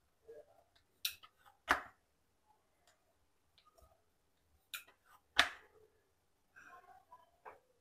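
Wooden rolling pin rolling out stiff bhakhari dough on a plastic rolling board, with sharp clacks as the pin knocks against the board: two pairs, about a second in and about five seconds in, and softer ticks and rubbing between.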